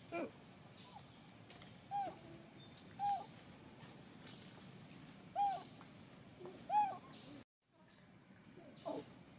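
Short animal calls, each rising and falling in pitch, repeated about six times at irregular intervals.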